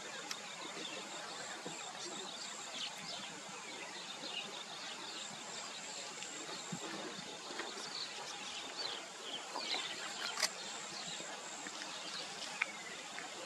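Grassland ambience: many short bird chirps scattered throughout over a steady high insect drone, with one sharp click about ten seconds in.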